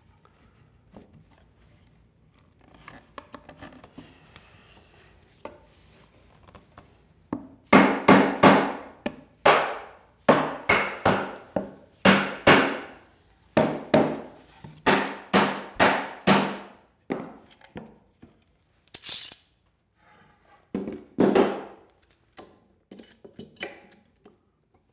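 A mallet knocking the glued rail tenons of a wooden stool home into the leg mortises: after some faint handling of the wooden parts, a quick run of about twenty sharp knocks, a few a second, with a short flurry more later.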